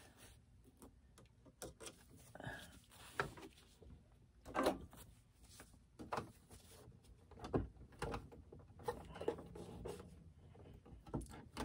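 Scattered faint clicks and soft rustles of hands snipping threads and handling the embroidery hoop and quilted fabric, with the embroidery machine stopped.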